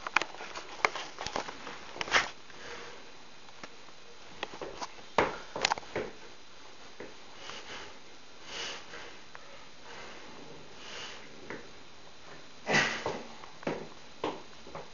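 Forceful breaths, sharp hissing inhales and exhales, of a weightlifter bracing through a set of heavy back squats, coming every few seconds between reps, with a few light clicks and knocks of the loaded barbell and rack.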